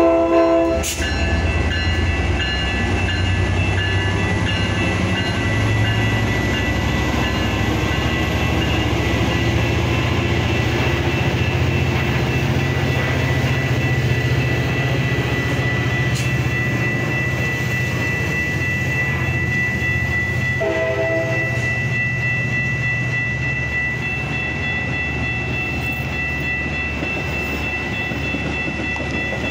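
Metra diesel-hauled commuter train passing at a grade crossing: a continuous low engine hum and the rumble of bi-level passenger cars rolling over the rails, with a steady high ringing tone. Two short horn blasts sound, one at the very start and one about 21 seconds in.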